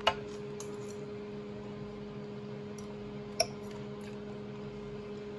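A metal fork clinks sharply against a plate twice, just after the start and again about three seconds later, while it scoops up rice, with a steady low hum underneath.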